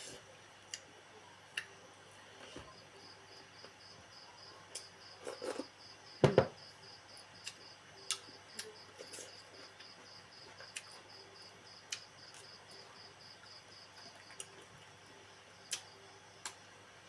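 A cricket chirping in a steady pulsed trill that starts a couple of seconds in and stops near the end, with scattered soft clicks and a louder knock about six seconds in.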